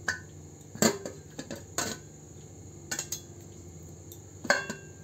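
Metal tongs clicking and clinking against the metal steamer as steamed rice-flour dumplings are picked out, about five sharp clinks at uneven intervals, the loudest near the end, over a low steady hum.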